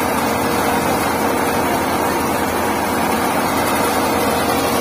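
Tractor-driven soybean thresher (huller) running steadily at full speed while dried soybean plants are forked into its hopper: a constant machine drone with a faint steady hum.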